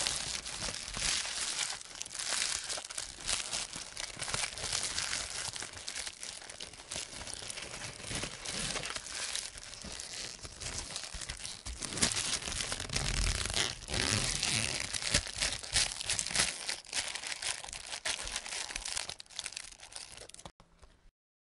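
Continuous rustling and crackling noise full of small clicks, that cuts off about a second before the end.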